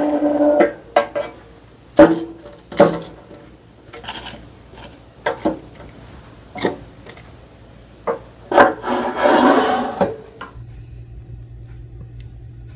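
Metal tongs and sweet potatoes knocking and scraping in the metal oven drawer of a wood-burning stove: a run of sharp knocks with a longer scrape about nine seconds in. After that it drops to a low, steady hum.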